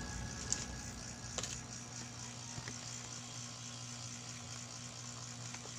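Background electronic music in a quiet passage of low sustained tones, with a few faint clicks in the first second and a half.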